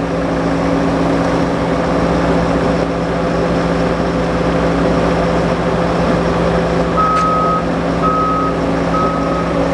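Bobcat skid-steer loader running steadily under load; about seven seconds in its reverse alarm starts beeping, three beeps about a second apart, as the machine backs up.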